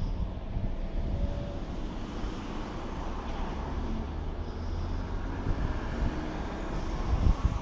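Steady low engine rumble with a hum, with a brief knock near the end.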